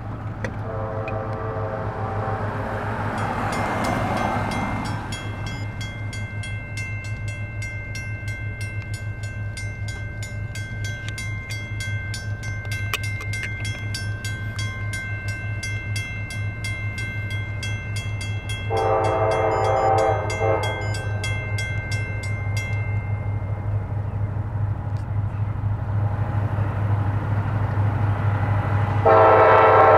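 Approaching diesel freight locomotive, CSX 2036, sounding its horn in long blasts: one ending a few seconds in, another about two-thirds of the way through, and a third starting near the end, over a steady low engine hum. A bell rings rapidly from a few seconds in until about three-quarters of the way through.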